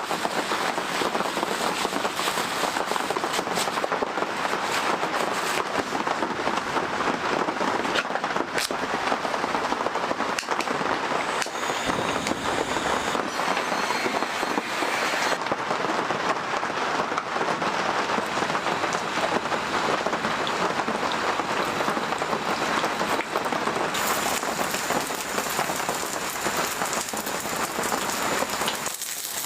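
Heavy rain, a dense steady patter full of sharp crackling drops, with the texture shifting abruptly a few times.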